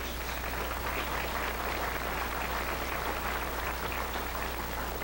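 Audience applauding: a steady patter of many hands clapping over a low, constant hum.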